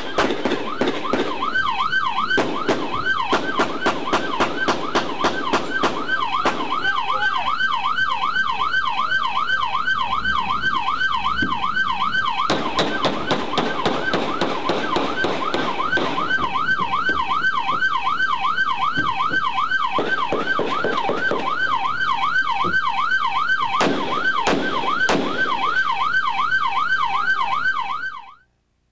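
Police siren on a rapid yelp, its pitch sweeping up and down quickly over and over, with scattered clicks and knocks. It cuts off abruptly near the end.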